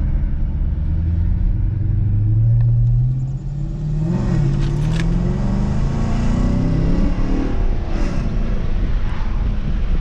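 Dodge Charger's Hemi V8 accelerating up through the gears, heard from inside the cabin. The engine note climbs, drops back briefly about three seconds in, climbs again and drops near the end.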